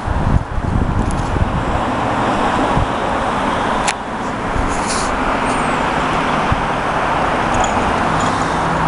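Steady road traffic noise, with a low hum coming in about six seconds in.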